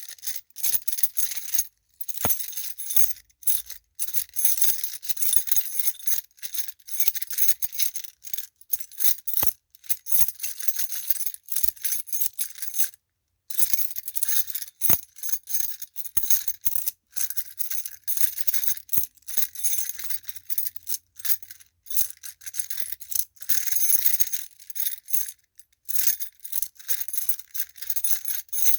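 A bunch of metal keys on a key ring jangling, shaken in irregular runs of bright clinking with brief pauses.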